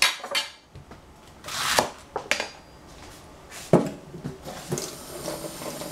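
Kitchen handling sounds: several separate knocks and clatters of utensils and produce, with a short scraping swish about two seconds in and the sharpest knock near four seconds.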